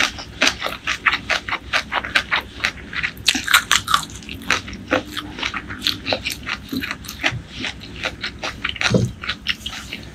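Close-miked chewing and wet mouth sounds of a person eating spicy chicken curry with rice by hand: a quick, irregular run of sticky smacks and clicks.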